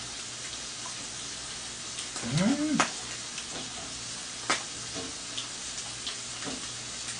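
Strips of pork belly and bacon sizzling steadily on a tabletop grill pan. A short voice sound comes about two and a half seconds in, and a few light clicks are heard.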